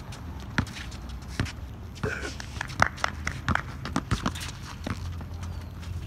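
A basketball bouncing on an outdoor court, mixed with players' running footsteps, making a string of irregular sharp thuds.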